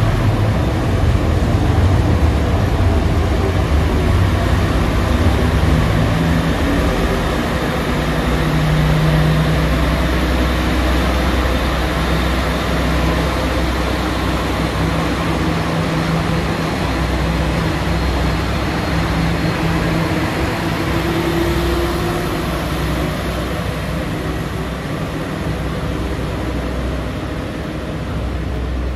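A train running past with steady running noise and a low motor hum, a tone rising slightly around the middle, the noise easing off gradually toward the end.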